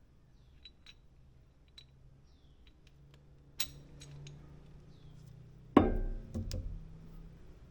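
A few sharp metallic clanks and knocks with a short ring after them, the loudest about six seconds in, after some faint ticks.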